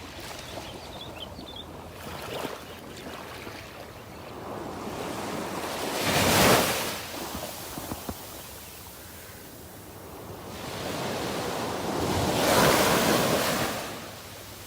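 Ocean waves breaking on a sandy beach. Two larger breakers surge in and wash back, the first about six seconds in and the second about six seconds later, with a steady surf hiss between them.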